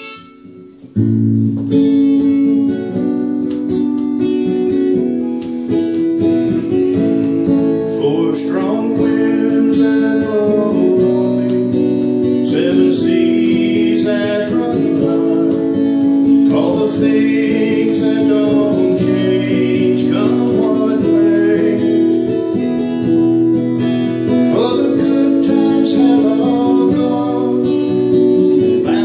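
Acoustic guitar strummed as the accompaniment to a sung folk song, with a voice singing over it; the guitar comes in about a second in.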